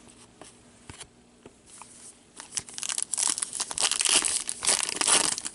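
A trading-card pack wrapper crinkling and tearing as it is opened. A few faint clicks come first, then a couple of seconds of dense crackling from about halfway in.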